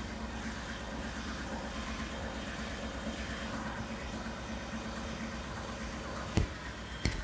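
Ford 5.0 Coyote V8 in a 2019 F-150 idling steadily, with a low even rumble, heard under the open hood. A sharp knock comes about six seconds in, and a click just before the end.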